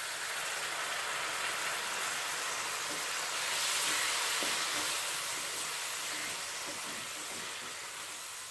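Onion and spice masala sizzling in hot oil in a kadai, with a spoonful of water just added and a wooden spatula stirring it. It is a steady hiss that swells about three to four seconds in and then slowly dies down.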